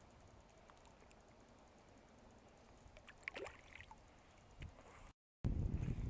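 Faint river background, then a short watery splash about three seconds in as a released smallmouth bass kicks away into the water. Near the end a loud, low rumbling noise starts suddenly.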